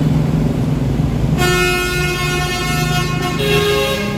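Bus engine running with a low, coarse exhaust note, then about a second and a half in a multi-tone bus horn sounds two long notes, the second at a different pitch.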